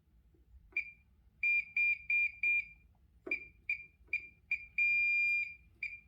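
Fire alarm control panel's sounder giving a string of short high-pitched beeps at uneven spacing, with one longer beep about five seconds in, while the system is being reset.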